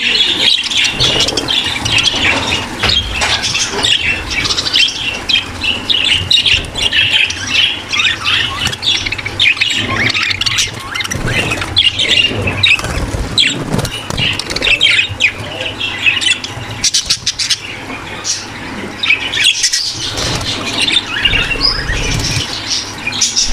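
A flock of budgerigars in a breeding aviary chattering nonstop: overlapping warbles, chirps and squawks from many birds. This is the flock chatter of breeding birds that is used to bring pet budgies into breeding condition.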